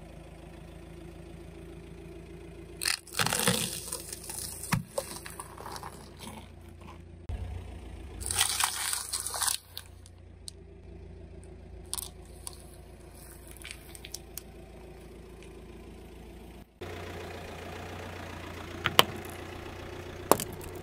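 A car tyre rolling over and crushing crunchy snacks, breadsticks and wafer bars, in two stretches of loud cracking and crunching, over the low hum of the car's engine idling. Near the end come two sharp single snaps.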